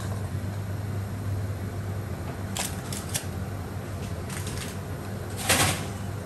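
Steady low kitchen hum with a few light clicks, and a brief rustling noise about five and a half seconds in.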